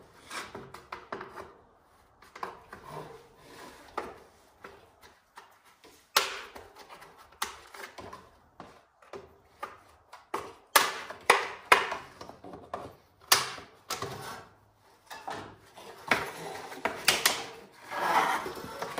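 Irregular sharp knocks, clicks and scraping as plastic front-end trim and its retaining clips are pried and pulled loose from an old Ford truck.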